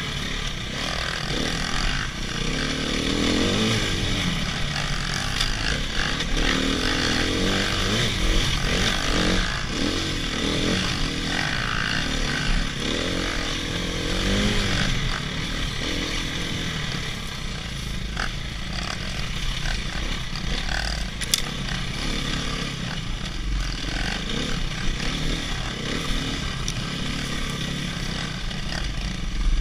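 Dirt bike engine running on a forest single-track, its pitch rising and falling as the throttle is worked, over wind and rattle noise on the mounted camera.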